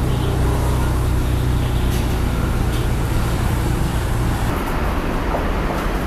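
Steady low rumble of a wok's gas burner, with a steel ladle clinking against the wok a few times during stirring; the rumble eases off a little past the middle.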